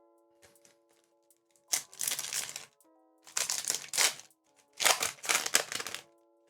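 Foil Pokémon booster pack wrapper crinkling and tearing open in three loud bursts, over soft background music.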